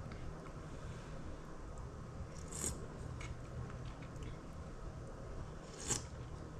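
Quiet sounds of someone eating soup with a spoon: two brief scraping sounds, about two and a half and six seconds in, over a steady low hum.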